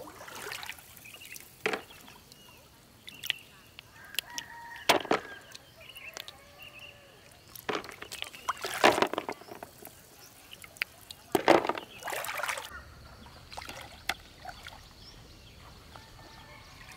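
Water splashing and dripping as hands scoop snails out of shallow muddy floodwater, in short irregular bursts a second or a few seconds apart.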